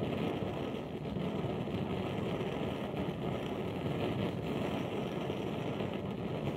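Companion No 42 one-pint brass kerosene blowtorch burning under pressure, its jet flame making a deep, steady rushing noise.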